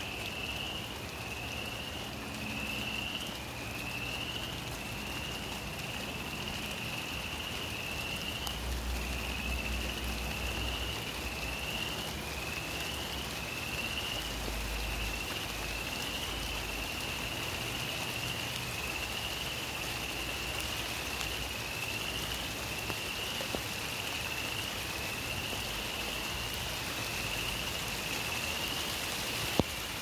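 Steady rain falling, with frogs calling throughout: a regular run of short, high, rising peeps, about one a second. A single sharp click near the end.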